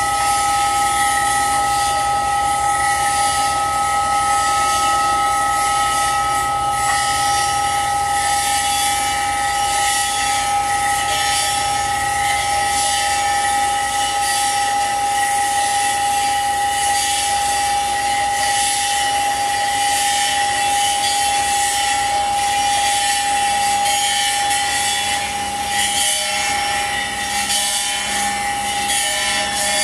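Free-improvised experimental music: continuous scraping and rubbing noise from a drum kit under several steady held high tones, forming a dense, unbroken drone.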